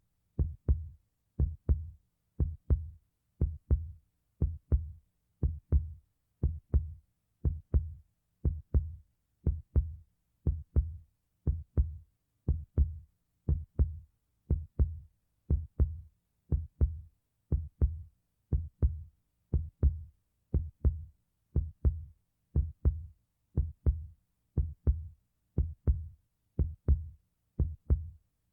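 Heartbeat sound effect: a steady, even rhythm of low double beats (lub-dub), about one pair a second.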